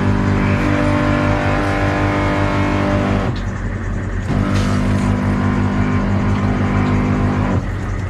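Small water pump (with automatic shut-off) running under the sink: a loud, pulsing hum, described as noisy. The tone changes about three seconds in, comes back a second later, and changes again near the end.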